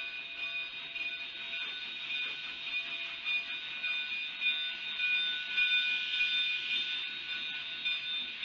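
Narrow-gauge steam train pulling out and rolling past, heard as a steady high-pitched whine of several tones over a hiss.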